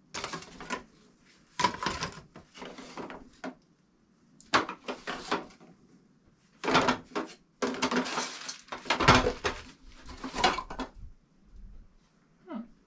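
Grey plastic drain pipe fittings clattering and knocking against each other and the plastic crates as they are rummaged through, in several bursts with short pauses between.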